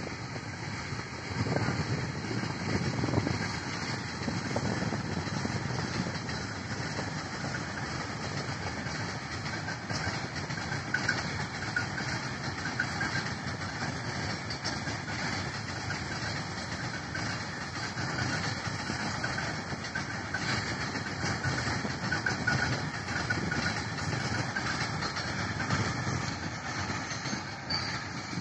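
Indian Railways BCNA covered freight wagons rolling past on steel rails: a steady rumble and rattle of wheels and wagon bodies.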